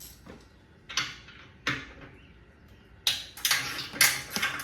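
Metal hand-tool clicks and knocks at the exhaust clamp under a motorcycle slip-on muffler: a couple of single clicks, then a quick run of clicks and knocks near the end.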